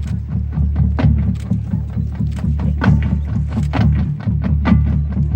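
Marching band music: repeated percussion strikes over sustained low notes, with short pitched mallet-like tones now and then.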